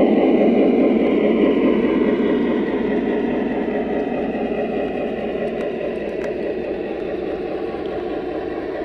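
O gauge model train rolling along the track, heard from a camera riding on a flat car: a steady rumble that slowly gets quieter.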